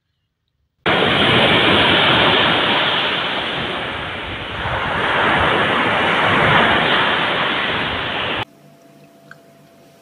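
Surf breaking on a beach: a loud rushing of waves that eases off and swells again about halfway through, then cuts off abruptly near the end.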